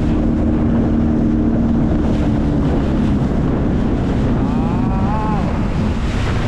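Sea-Doo jet ski engine running on the water, with heavy wind on the microphone and rushing water. The engine's steady tone fades out about three seconds in.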